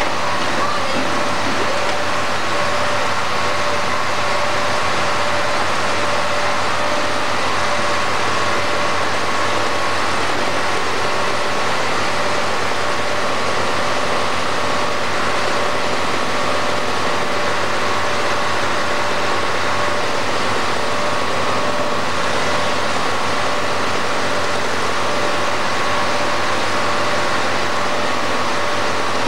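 Engine of the tree-felling machinery running steadily, an even, unchanging drone with no revving.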